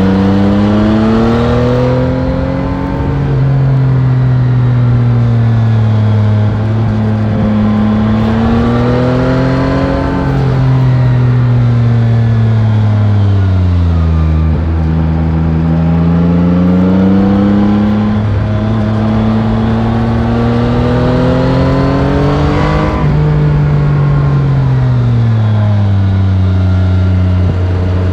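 Yamaha Tracer 9 GT's 890 cc CP3 inline-three engine on its stock exhaust, heard onboard while riding. Its pitch rises and falls several times as the bike speeds up and eases off, with one quick sharp rise about three-quarters of the way through.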